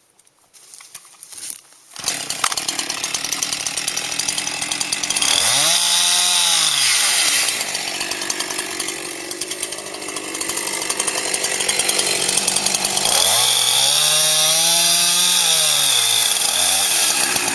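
Chainsaw cutting into a standing tree trunk, starting about two seconds in. The engine's pitch rises and falls twice as the throttle is opened and eased during the cut, and it stops near the end.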